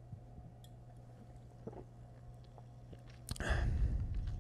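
A person drinking soda from a bottle: a few faint gulps, then a short, loud rush of breath a little past three seconds in as the bottle comes away from the mouth.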